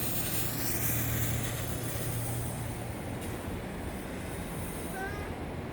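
Pink smoke firework hissing steadily as it pours out smoke; the hiss thins near the end.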